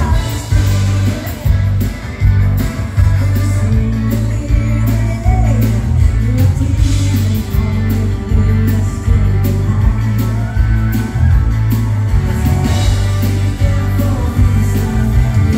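Live Swedish dansband music: a singer over electric guitar, bass and drums, with a steady beat.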